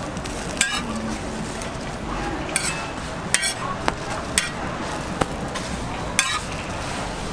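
Metal spatula scraping and tapping on a flat griddle, with about five sharp clicks, over the steady sizzle of an egg-and-vegetable omelette frying.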